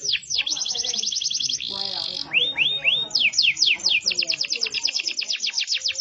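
Domestic canary singing a continuous song of rapidly repeated phrases. Runs of quick falling sweeps alternate with very fast trills, broken about two seconds in by a short buzzy note and three curling whistles.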